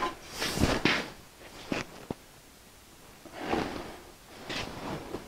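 Steel conduit being handled and slid into the head of a hand conduit bender: scraping and rattling of metal on metal, with two sharp clinks about two seconds in.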